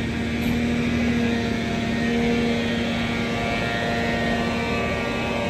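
Large engine running loudly and steadily at one pitch: a deep drone with a few higher tones that waver slightly over it.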